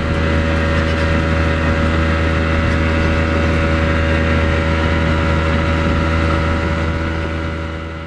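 Mercury outboard motor running at a steady cruising speed, pushing a boat fast with water rushing along the hull; it fades out near the end.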